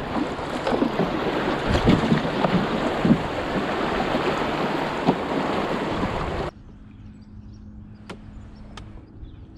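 Shallow river riffle rushing and splashing around a kayak as it runs through, with a few short knocks. About six and a half seconds in it cuts off abruptly to a much quieter calm-water stretch with a couple of faint clicks.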